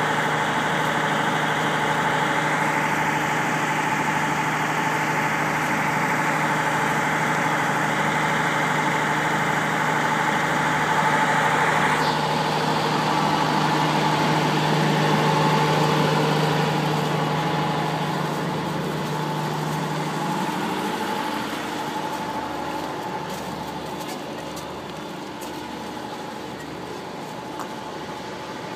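A stopped train idling with a steady low hum and a hiss over it. The hum fades out about two-thirds of the way through.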